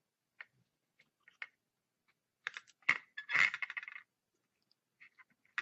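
Small tools and parts handled on a workbench: a few light clicks, then a short clattering rattle of hard objects about three seconds in, and a couple more faint clicks near the end.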